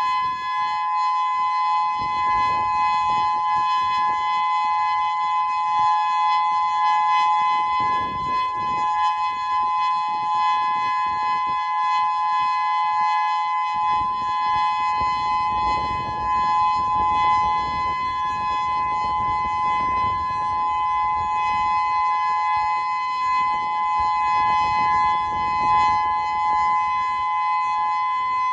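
Federal Signal Modulator II 6024B electronic warning siren sounding its steady Alert signal for a siren test: a loud, high tone that holds its pitch without rising or falling. A low rumble comes and goes underneath.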